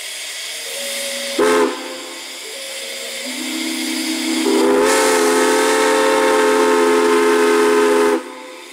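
Steam chime whistle blowing several notes at once over a steady hiss of steam: a short loud blast about a second and a half in, then a long loud blast from about four and a half seconds that cuts off sharply near the end.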